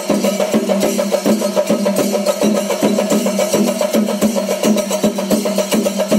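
Percussion-led music: fast, dense drumming over two steady held tones, going on evenly without a break.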